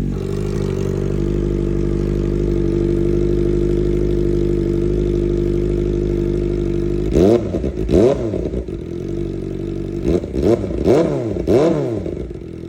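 Kawasaki Ninja ZX-4R's inline-four engine, breathing through an aftermarket exhaust, idling steadily at a raised pitch, then blipped about half a dozen times from around halfway in, each rev shooting up in pitch and dropping straight back.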